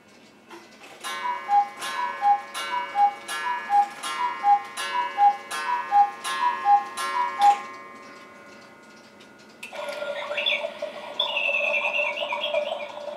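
Anton Schneider quartz cuckoo clock calling the hour: nine electronic two-note cuckoo calls, high then low, about one every three-quarters of a second. Near the end of the calls, after a short pause, the clock's melody starts playing.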